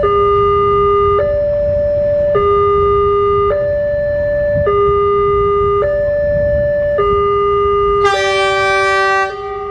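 A railway level-crossing alarm sounds a steady two-tone ding-dong, low and high tones alternating about every second, warning of an approaching train. About eight seconds in, a train horn blows once for about a second over it.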